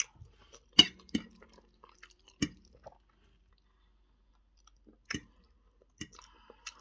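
A person chewing food with wet mouth smacks: a few sharp smacks in the first half, a pause of about two seconds, then a few more near the end.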